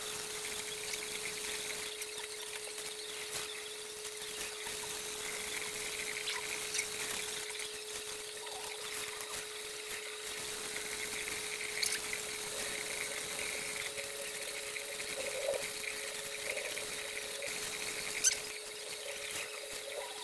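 Kitchen faucet running into a stainless steel sink as tie-dyed cotton towels are rinsed under it, a steady hiss of water with a faint steady tone beneath. Two sharp knocks stand out, the louder one near the end.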